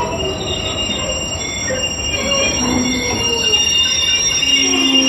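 Intermodal container wagons of a freight train rolling past at walking-close range: a steady low rumble from the wheels on the rails, with several high-pitched squeals that hold steady and overlap.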